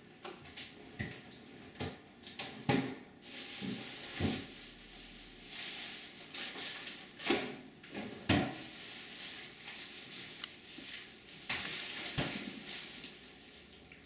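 Handling noise close to the microphone: scattered sharp knocks and clicks, the loudest about a fifth and again about three fifths of the way in, with two stretches of hissy rustling.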